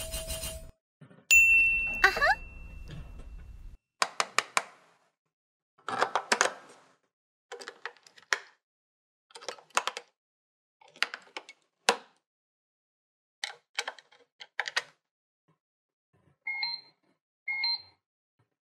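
A short electronic sound with rising tones, then a series of sharp plastic clicks and rattles as AA batteries are pressed into a toy's plastic battery compartment. Near the end the toy gives two short electronic beeps.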